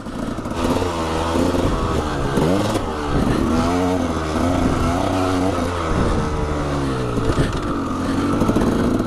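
KTM 300 two-stroke dirt bike engine being ridden hard, its pitch rising and falling over and over as the throttle is opened and closed.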